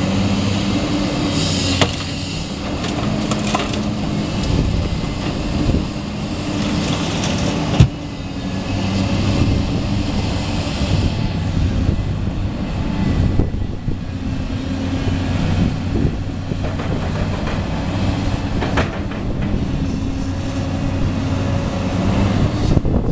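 Heavy diesel equipment engine running steadily, with a few sharp knocks, the loudest about eight seconds in.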